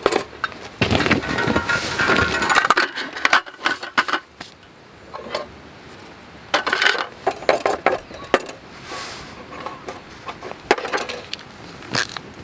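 Aluminium roll-top camping table being unrolled and set up, its slats clattering and clinking against each other in bursts, with further light metal knocks as things are set on it.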